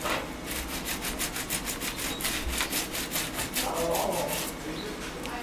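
Soft-bristled toothbrush scrubbing pitch off the teeth of a circular saw blade wet with an ammonia and water mix: quick, even back-and-forth strokes, about five a second. The strokes stop near the end.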